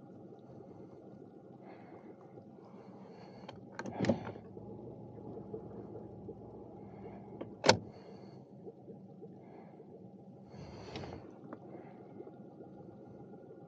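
Two sharp knocks of gear in a fishing boat, a smaller one about four seconds in and a louder one nearly eight seconds in, with a brief rustle of handling later, over a steady low hum.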